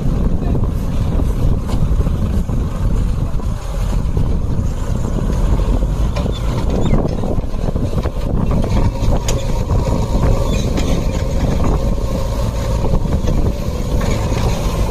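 Heavy diesel engines of an Ashok Leyland BS3 tipper truck and a JCB 3DX backhoe loader running close together, a steady low engine rumble as the truck moves slowly over soft dirt.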